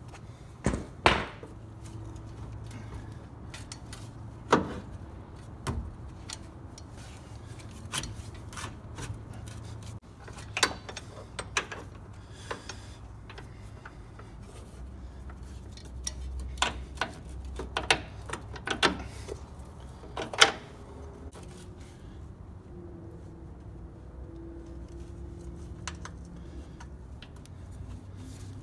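Irregular metallic clinks and knocks as an upper control arm and its bolts and tools are handled and fitted to the truck's frame, the loudest about a second in, near 4 s and near 20 s, over a low steady hum.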